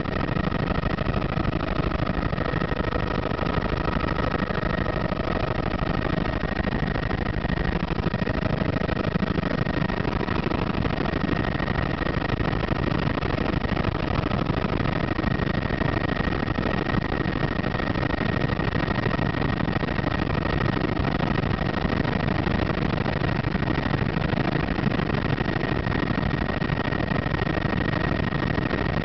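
Helicopter in flight, heard from inside the cabin: steady engine and rotor noise with a constant high whine running through it.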